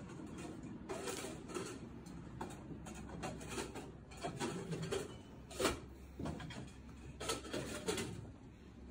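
Irregular light knocks and clatters over a steady low hum, the loudest knock a little past halfway.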